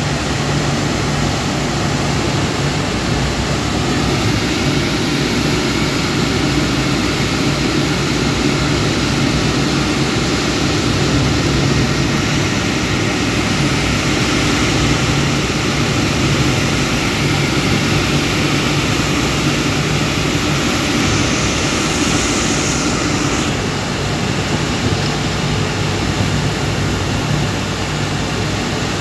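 Steady running noise of a moving car heard from inside the cabin: engine hum with road and tyre noise. It eases off a little about three-quarters of the way through.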